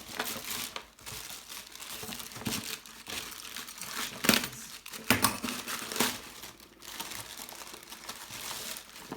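Packaging of a 3D printer upgrade kit being unwrapped by hand: irregular crinkling and rustling, with the sharpest, loudest crackles about four and five seconds in.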